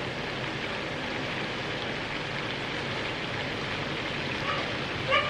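Pork hock slices sizzling steadily in hot oil in a frying pan as they brown. A short high-pitched chirp sounds right at the end.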